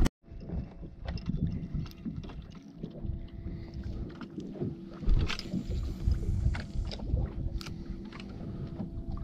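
Wind buffeting the microphone and water lapping around a small boat, with a faint steady hum underneath. A couple of sharp clicks stand out about five seconds in and again near the end.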